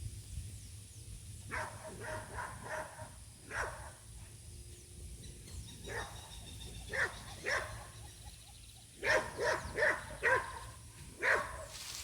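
A dog barking in short clusters of quick barks with pauses between. The last cluster, near the end, is the loudest.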